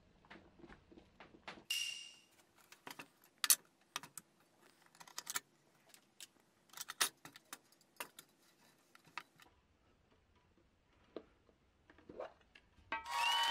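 Aluminium mess tin and its lid clinking and knocking as they are handled and set down on a wooden cutting board: a series of sharp metallic clicks, with one ringing clink about two seconds in.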